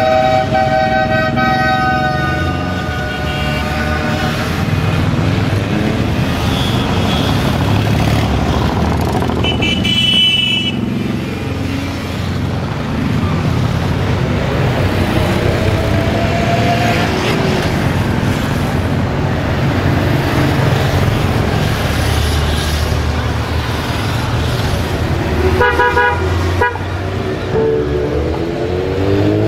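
A stream of motorcycles passing one after another, their engines running in a steady low rumble, with horns honking: a long blast at the start, a short high toot about ten seconds in and another short one near the end. Near the end an engine revs up in rising glides.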